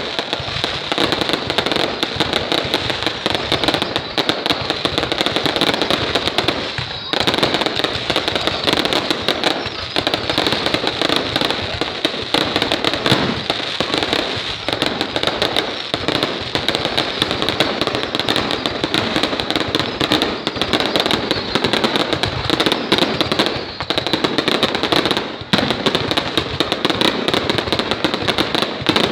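Fireworks going off in a dense, continuous barrage of bangs and crackles, with two brief lulls, about seven seconds in and near the end.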